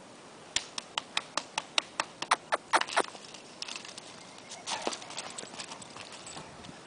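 A quick run of about a dozen sharp knocks, coming faster and faster, then softer scuffling as a young Bullmastiff dashes off along a forest dirt path.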